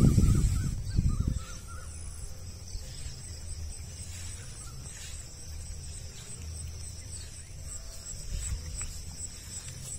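Outdoor riverbank ambience. A loud low rumble on the microphone fades out in about the first second and a half, leaving a quieter steady low rumble, a high steady insect drone and a few faint bird calls.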